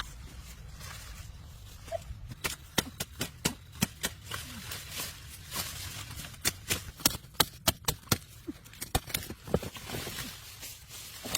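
A blade chopping at sugarcane stalks: a run of sharp, irregular cutting strikes, several a second, starting about two seconds in.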